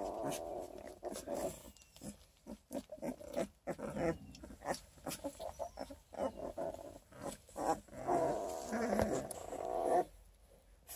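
Twelve-day-old coonhound-cross puppies whining and grunting in stretches of a second or two, the longest near the end, among scattered short clicks.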